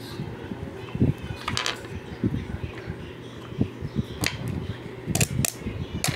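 Small plastic cup knocked and slid on a tile floor: several sharp, irregularly spaced taps and clicks, over a steady low hum.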